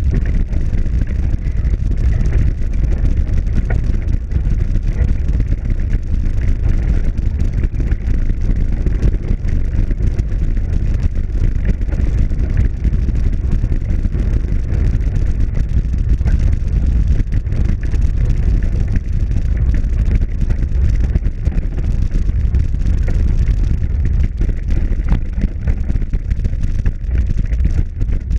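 Bicycle riding over a gravel and dirt trail: steady low rumble from the tyres and frame on the rough surface, with wind on the camera microphone.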